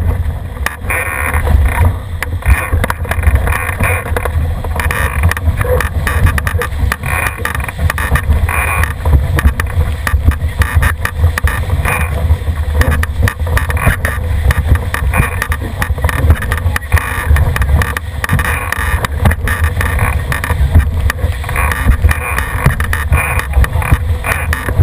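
Cherub sailing dinghy's hull rushing through the water at speed, with spray hissing and irregular slaps of water against the hull, under heavy wind buffeting on the boat-mounted camera microphone.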